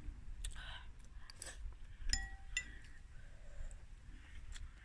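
A metal fork clinking and tapping against a ceramic bowl of noodle soup a few times; the clearest clink, about two seconds in, rings briefly.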